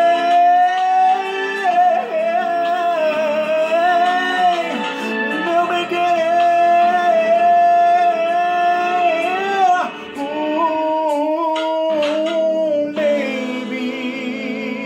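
A voice singing a slow, romantic Brazilian Portuguese love song over backing music, in long held notes that waver with vibrato.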